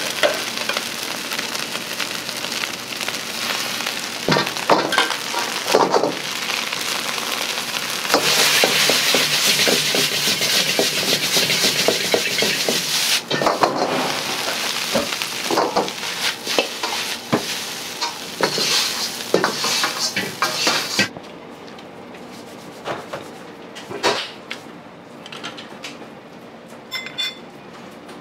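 Egg fried rice sizzling hard in a wok over a high gas flame, with the metal ladle repeatedly scraping and clanking against the wok as the rice is stirred and tossed. About 21 seconds in the sizzle cuts off abruptly, leaving a few quieter knocks and clinks.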